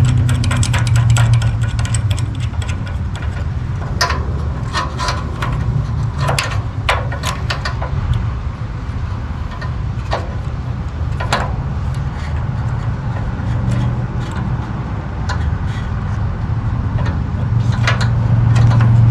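A steady low mechanical hum, with scattered sharp clicks and knocks over it.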